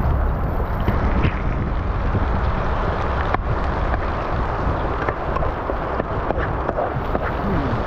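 Sliced onions frying in hot oil in a pan: a steady sizzle with scattered pops and crackles.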